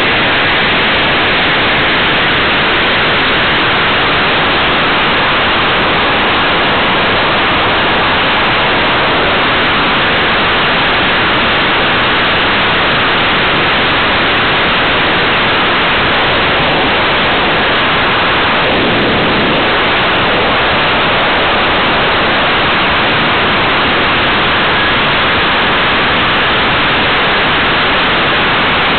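Steady, loud rush of airflow over a small camera riding on a model aircraft in flight. It is an even hiss with no motor note or other sound standing out.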